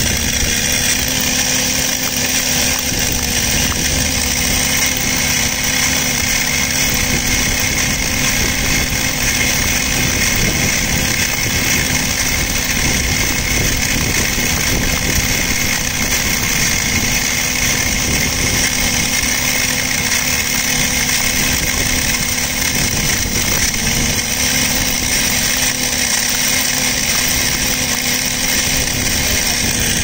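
MiniSKY microduct fiber cable blowing machine running steadily: a constant machine drone with several steady tones over a hiss, unchanging throughout.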